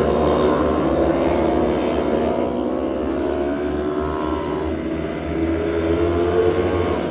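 A field of micro midget race cars running laps on a dirt oval, several engines sounding at once. The sound eases as the pack goes down the far side about five seconds in, then builds again near the end as the cars come back around.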